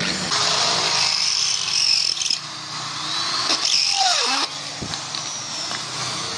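Corded electric drill boring through the metal top of an emptied aerosol spray-paint can, the bit grinding on the thin tin. It eases off briefly about two and a half seconds in, grinds again with a wavering whine, and stops about four and a half seconds in.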